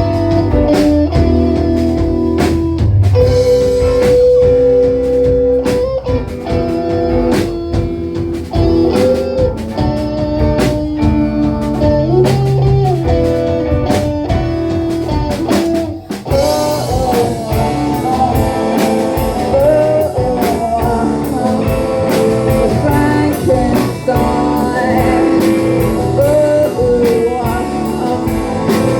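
Live rock band playing an instrumental section, with guitar and drum kit. The bending notes are lead guitar. About 16 seconds in there is a brief drop, then the full band comes back in.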